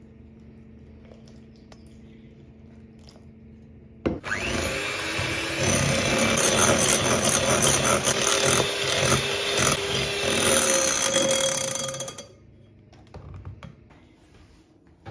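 Electric hand mixer running, its beaters whipping milk and whipped-cream powder in a ceramic mixing bowl. It starts abruptly about four seconds in and stops about eight seconds later.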